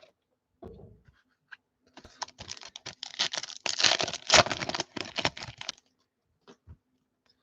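Hands opening a foil trading-card pack and handling the cards: a dull knock, then about four seconds of dense crinkling, rustling and clicking as the wrapper and cards are worked.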